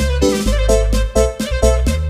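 Background music: an upbeat electronic keyboard tune with a strong bass beat.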